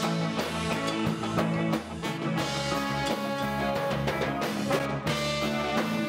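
Ska band playing live: electric guitar and drum kit on a steady beat, with a horn section of trombone and saxophone.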